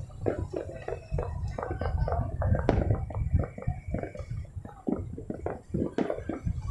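Distant New Year's fireworks going off across the city: a continuous irregular crackle of pops and bangs over a low rumble, with two louder sharp bangs about two and a half seconds and six seconds in.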